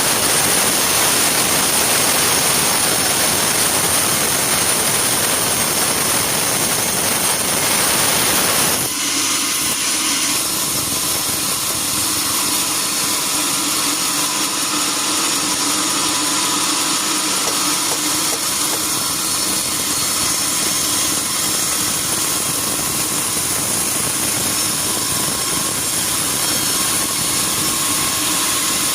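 Sawmill saw cutting through a log with a dense, loud noise, then running on without load after the cut ends about nine seconds in.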